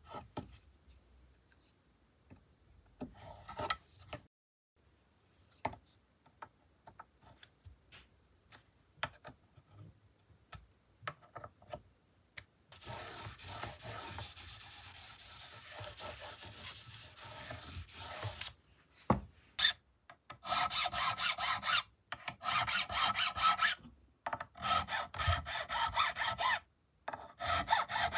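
Light, scattered scratches and clicks of a pointed tool cleaning out the fret slots of an ebony fretboard. Then a cloth rubs steadily over the fretboard for about six seconds. In the last third come several runs of quick, even back-and-forth strokes of a thin blade in a fret slot.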